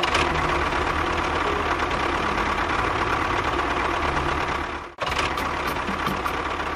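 A motor running steadily with a dense, rattly mechanical noise. It cuts out for an instant about five seconds in, then carries on.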